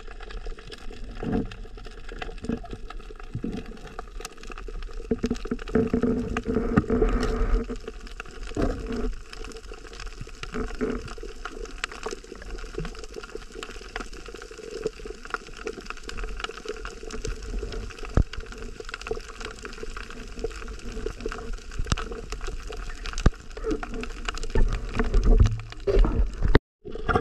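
Underwater sound heard through a camera housing: muffled water movement and gurgling, with many scattered small clicks and crackles.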